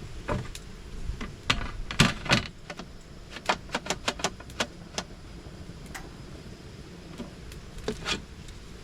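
Irregular clicks and knocks of camping gear being handled: two louder knocks about two seconds in, then a quick run of sharp clicks, and a couple more near the end.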